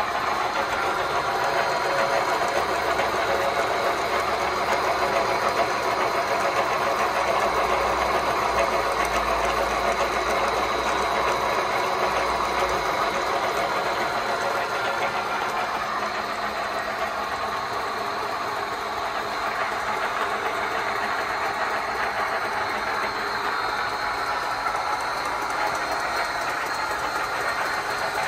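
Gear hobbing machine running, a steady mechanical whir and clatter of its gear train and hob spindle, with a faint high whine.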